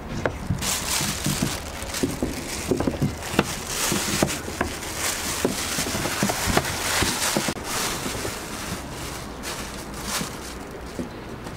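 Thin plastic bag crinkling and rustling as it is handled and spread over a pan of rolled dough rounds, easing off near the end, with a few light knocks.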